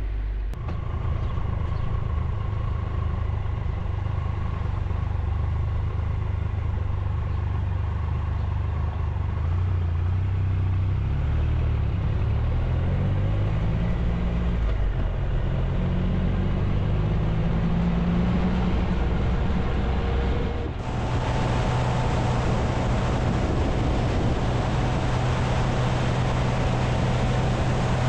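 Motorcycle engine heard from on board. At low speed its pitch climbs and drops back several times as it pulls away through the gears. About two-thirds of the way in, it switches abruptly to steady cruising at speed, with loud wind rush on the microphone.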